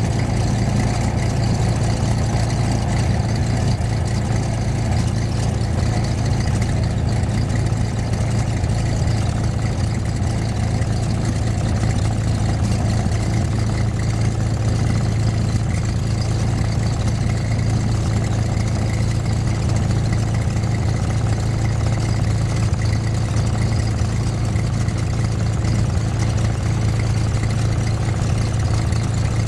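Aircraft engine running steadily at low taxi power, a constant low drone heard from inside the cabin.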